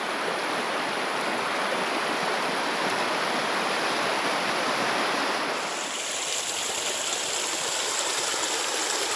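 Rushing water of a stream, a steady even rush whose tone shifts slightly about five and a half seconds in.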